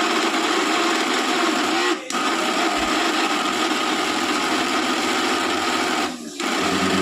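Mixer grinder's motor running below its normal speed with an odd sound, which the repairer puts down to a burnt armature or a carbon brush problem. It dips briefly twice, about two seconds in and near the end.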